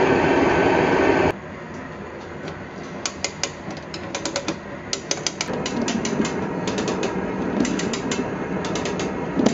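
For the first second, a burner flame rushing steadily under the barrel. From about three seconds in come bursts of rapid clicking from the ratchet of a hand cable puller, cranked stroke by stroke to tighten a steel cable around the barrel staves and draw them together.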